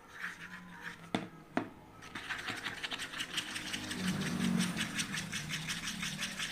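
Slime being stirred fast in a container with a stirrer: two knocks about a second in, then a rapid run of scraping, clicking strokes from about two seconds on.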